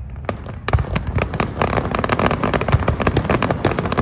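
Aerial fireworks display: a dense barrage of overlapping bangs and crackling that starts about a third of a second in and keeps going several times a second.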